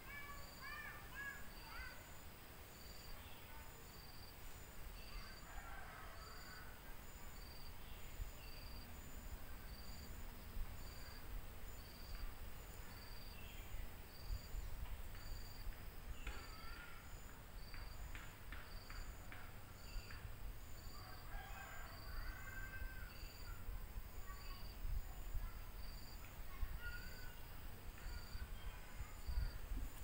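Forest ambience: a cricket chirping in a steady high pulse, about three chirps every two seconds, with birds calling now and then. A low rumble sits underneath.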